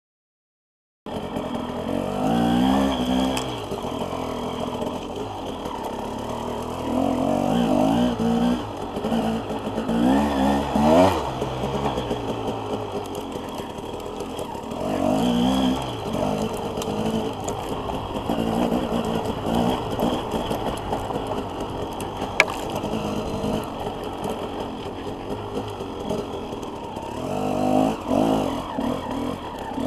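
Enduro dirt bike engine on a trail ride, starting about a second in and revving up in repeated bursts, then dropping back between them. A single sharp snap stands out about two-thirds of the way through.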